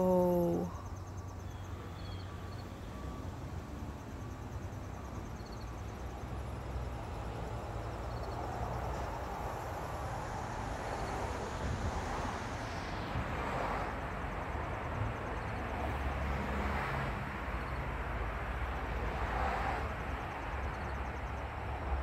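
Outdoor background noise: a steady low rumble under a faint hiss, swelling a few times in the second half, with a few faint short high chirps in the first half.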